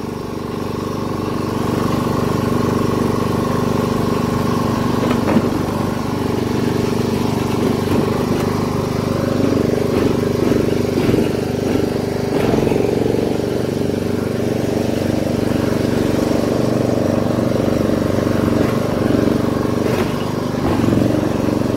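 Castle Garden 140 HD ride-on lawn mower's engine running steadily as the mower drives along, getting a little louder about a second or two in.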